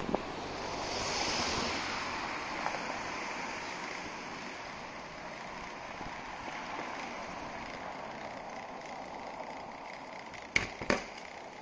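Steady rushing noise of riding a bicycle along a street, wind on the microphone with tyre and road noise, swelling about a second in as a car overtakes. Two sharp clacks near the end.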